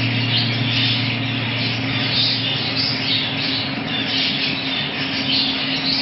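Many budgerigars chattering and twittering at once in a dense, continuous flock chatter, with a faint steady hum underneath.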